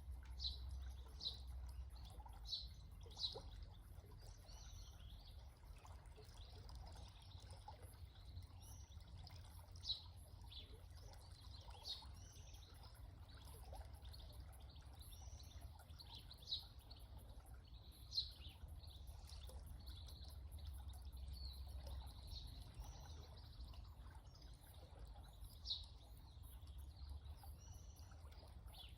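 A small stream trickling steadily, faint, with birds giving short high chirps every few seconds.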